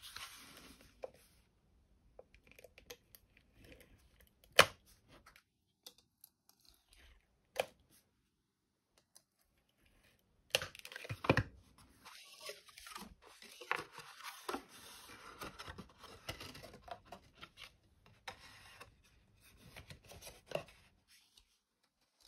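Stampin' Seal Plus tape runner dispensing adhesive strips onto cardstock, a sticky rasping sound, with paper rustling and several sharp clicks as the card is handled, pressed and folded.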